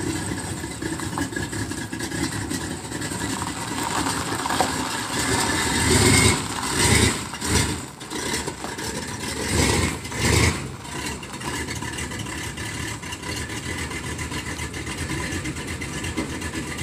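GMC pickup truck's engine running, revved up twice, about six and ten seconds in, as the truck pulls away from the curb, then running steadily as it drives off.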